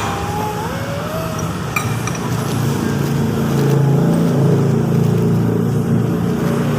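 A motor vehicle engine running as a steady low rumble, louder from about three seconds in.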